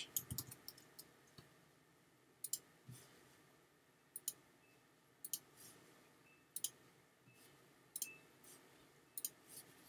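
Quiet computer mouse button clicks, often as a quick press-and-release pair, coming about once a second as anchor points are placed with Photoshop's pen tool.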